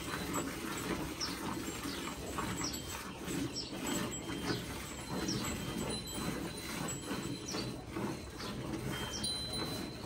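Milk squirting in a steady rhythm into a steel bucket as a cow is milked by hand, with faint high chirps over it every second or so.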